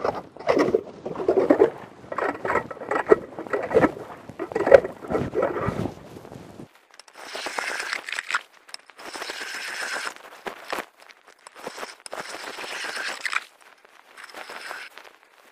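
Rapala hand ice auger being cranked into lake ice, crunching and scraping. The sound turns thinner and higher, in scraping bursts, about seven seconds in.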